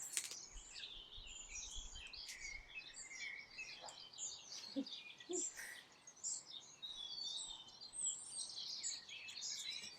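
Songbirds chirping and twittering in the background, many short high calls overlapping without a break.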